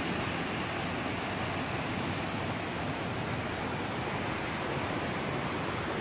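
Steady rush of Dassam Falls, a waterfall pouring over rock ledges.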